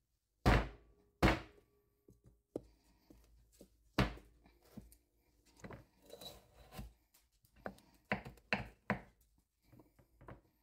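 Chef's knife cutting a whole acorn squash in half on a bamboo cutting board: the squash, with the blade wedged in its hard rind, knocks down on the board in heavy thunks. There are two strong ones in the first second and a half and the loudest about four seconds in, then lighter knocks and cutting sounds as the blade works through.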